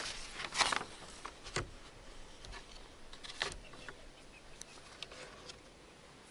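Pages of a service book on a lectern being turned and handled close to the microphone: several papery rustles and soft knocks over the first four seconds, then quieter.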